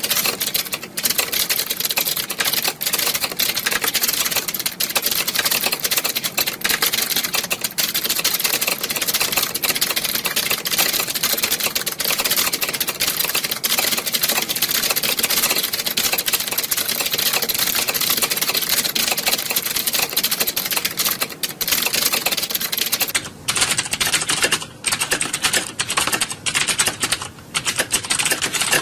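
Many computer keyboards clacking at once, as in a typing-test exam hall: a dense, near-continuous clatter of keystrokes. About 23 s in it thins to sparser runs of typing with short gaps.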